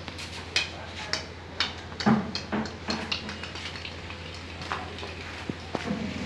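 Dogs playing with a ball on a hard floor: a string of sharp clicks and knocks, about two a second at first and then irregular, over a steady low hum.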